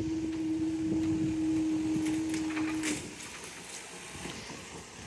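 A level crossing's warning alarm sounds one steady electronic tone that cuts off abruptly about three seconds in. A few light clicks and rattles come just before it stops.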